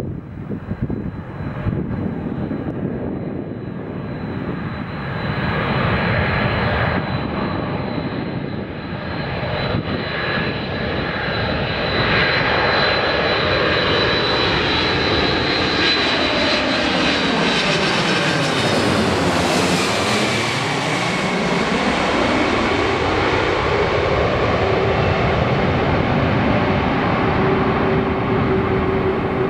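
Boeing 747-400 on final approach passing low overhead, its four turbofan engines giving a steady rumble with a high fan whine. The sound grows louder, and about two-thirds of the way through the whine drops in pitch as the jet passes over and goes away.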